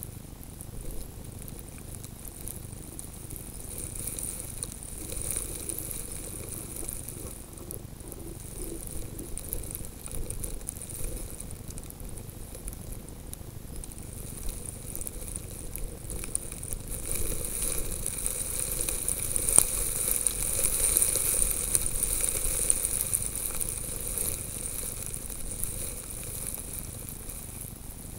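Hissing and crackling patter of wind-blown snow grains against a camera lying in the snow. It grows louder for several seconds a little past halfway, with one sharp click in the loudest part.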